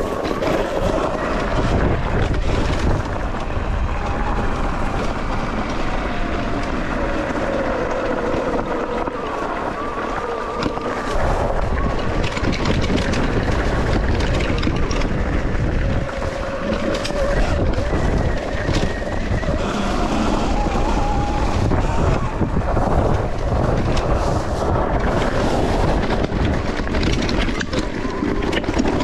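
Sur Ron X electric dirt bike being ridden: a motor and drivetrain whine that rises and falls with the throttle, under heavy wind buffeting on the microphone.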